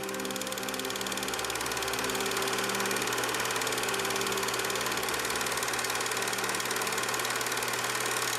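Film projector running: a fast, even clatter of film advancing through the mechanism over a steady low hum, rising slightly in the first couple of seconds.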